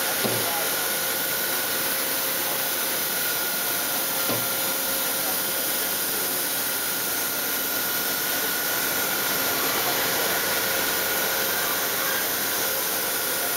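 Steady whirring running noise of an Ikegai NB130P CNC horizontal boring mill, a broad hiss with a faint constant high whine underneath.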